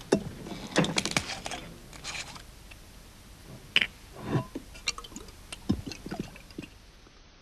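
A scattering of small irregular clicks, taps and scrapes, the loudest cluster about a second in.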